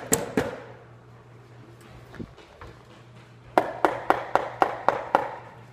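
Bananas being mashed in a bowl: a few sharp knocks at the start, then, after a quieter stretch, a longer run of rhythmic strikes at about four to five a second.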